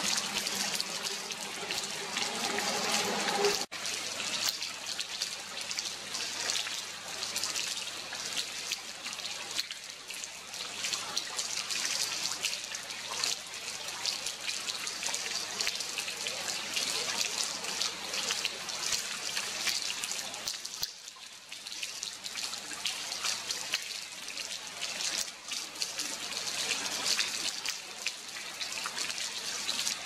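Water dripping and trickling in a dense, steady patter of drips.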